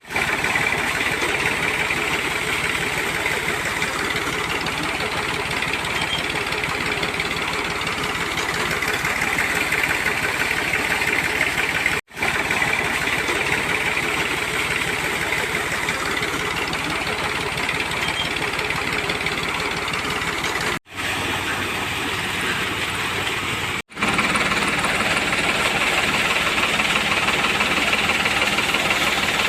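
Steady machine running noise with a rapid, crackling texture, broken by three abrupt cuts.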